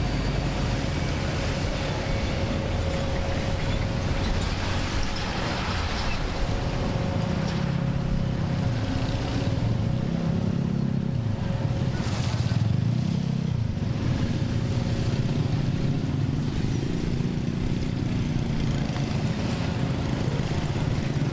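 Steady engine noise with a constant hum and a low rumble, from about eight seconds in joined by a low, wavering drone.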